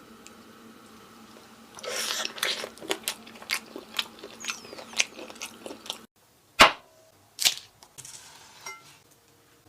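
Close-miked eating: biting into and chewing crisp-edged, cumin-crusted pan-fried lamb chops, a run of crunchy crackles and clicks. After a sudden break, two loud sharp clicks follow a second apart.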